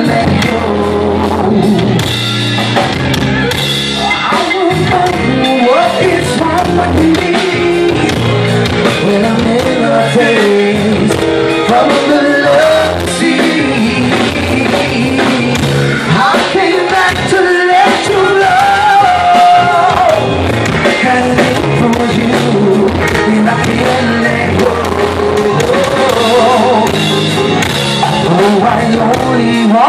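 Live blues-rock band playing at full volume, with electric guitar, keyboards and drums, and a man singing over it.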